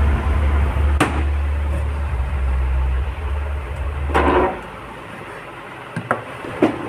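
A kitchen knife cutting a lime on a wooden chopping board: several sharp knocks of the blade against the board, one about a second in, one around four seconds, and a quick few near the end. Under it a steady low rumble, like a nearby engine, stops abruptly about four and a half seconds in.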